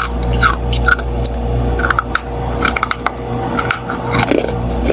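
Freezer frost crunching: many short, crisp crackles in an irregular run.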